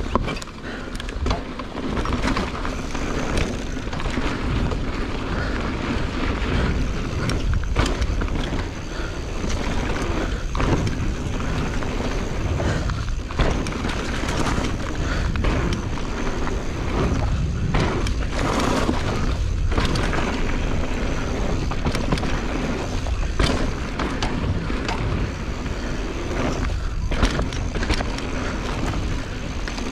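Mountain bike ridden along a dirt trail: continuous tyre and rolling noise with heavy low rumble, and frequent clicks and knocks from the bike rattling over bumps.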